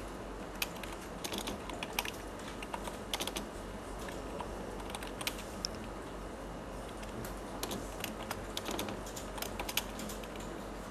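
Computer keyboard being typed on: irregular keystrokes in short runs with pauses between, over a steady low hum.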